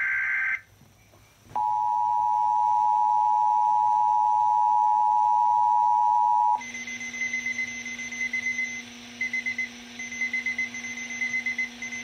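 Emergency Alert System weekly test tones. A warbling data burst of the alert header ends about half a second in. After a short gap, a steady two-tone attention signal sounds for about five seconds and cuts off, leaving hiss with a low hum and a high beep that stutters on and off.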